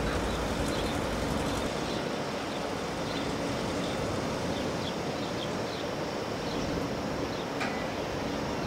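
A train running: a steady rumble with a faint hum, heavier low rumble in the first couple of seconds. Small birds chirp over it.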